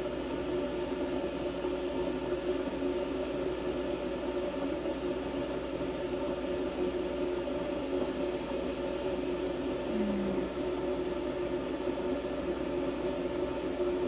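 Steady machine hum with several even tones over a light hiss, unchanging throughout, with a brief low tone about ten seconds in.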